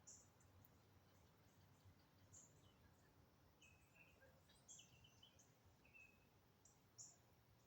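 Faint, high-pitched chirps of small birds, short and irregularly spaced, with a few lower chirping notes in between, over a low background hiss.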